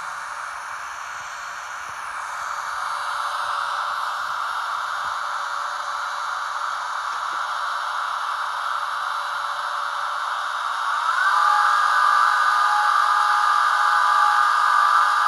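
The ESU sound decoder in a Märklin 39848 HO-scale Taurus electric locomotive model playing its electric-loco running sound through the model's small speaker: a steady hiss of fan and running noise. About eleven seconds in, a short rising whine settles into a louder chord of steady high tones, the locomotive's inverter sound.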